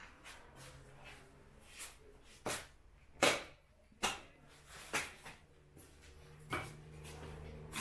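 About five sharp knocks and clanks, spaced irregularly, as whole mutton carcasses are shifted on their hooks along a metal rail, the loudest about three seconds in. A faint low steady hum runs underneath.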